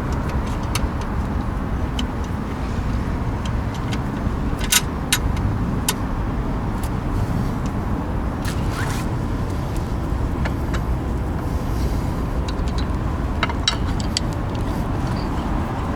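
Steady low rumble of vehicle noise, with a few light clicks scattered through it.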